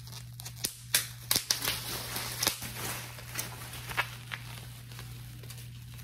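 Plastic bubble wrap being handled and squeezed: crinkling with a string of sharp pops and crackles, dense in the first half and sparser later.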